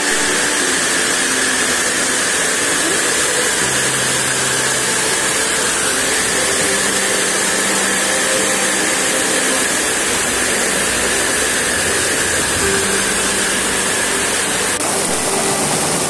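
Small waterfall: water rushing and splashing over rocks, close up, a loud steady roar of white water.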